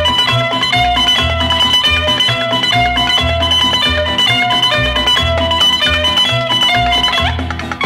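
Instrumental Greek syrtaki-style music: a bouzouki plays a quick run of plucked notes over a steady bass line, dipping briefly near the end.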